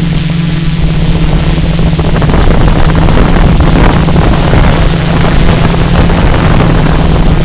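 Multirotor drone's electric motors and propellers humming steadily, picked up by the camera slung beneath it, with wind rushing over the microphone, louder in the middle.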